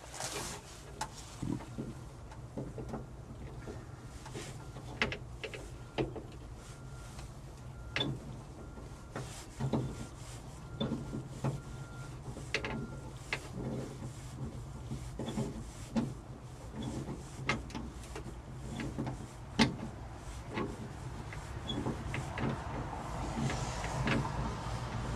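Scattered small metal clicks and taps from an Allen key and screws being worked loose on a 1972 VW bus's front door handle, over a low steady hum.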